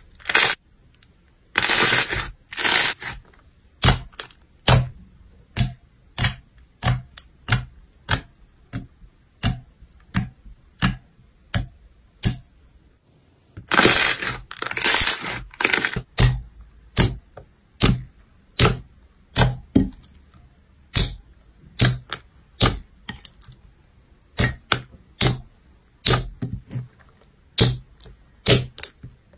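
Glossy slime being pressed and poked with the fingers, giving sharp sticky pops and clicks about once or twice a second, with longer stretches of squishing about two seconds in and again around fourteen seconds.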